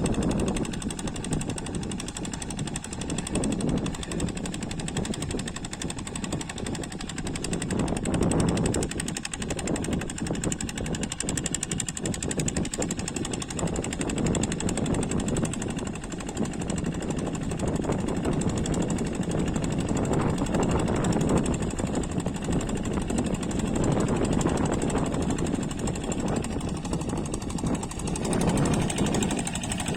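Single-cylinder Kubota diesel engine of a walking hand tractor running under load with a rapid chugging beat, swelling and easing in loudness every few seconds.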